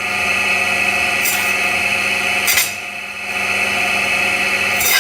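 Electric meat-cutting machine running steadily with a held whine. Three brief harsh bursts, about a second and a quarter apart, mark its blade cutting through chicken pieces, with a short drop in the running sound after the second.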